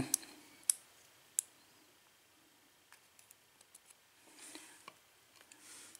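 Light metallic clicks and ticks of a thin metal tool working in the pin chambers of a disassembled Ilco KIK lock cylinder, with two sharper clicks in the first second or two and faint handling rustle later on.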